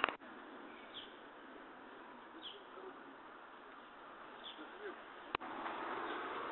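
Steady street background noise with a few short high bird chirps. Two sharp clicks, one at the start and one about five seconds in where the recording cuts, after which the background gets louder.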